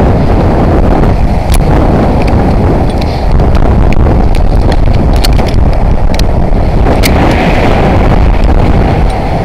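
Wind buffeting a worn camera's microphone high on a building facade: a loud, steady rumble, with scattered light clicks throughout.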